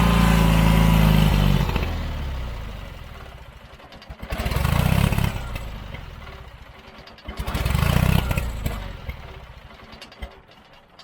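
John Deere 317 riding mower engine running, then dying away about two seconds in. It then briefly catches twice, each time running for about a second before dying again: the engine stalling for lack of fuel, which traces back to a plugged carburetor.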